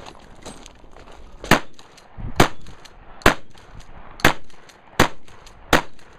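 Six gunshots from a shouldered long gun, fired about a second apart, the last three a little quicker.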